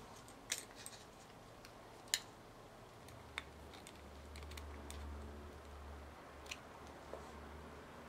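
Faint plastic and metal clicks and taps as a desktop hard drive is fitted into its green snap-in plastic drive bracket and handled: a few sharp clicks spread a second or more apart.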